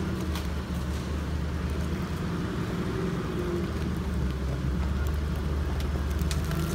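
Off-road vehicle engine running steadily with a low rumble, and a faint whine that rises and dips in pitch now and then.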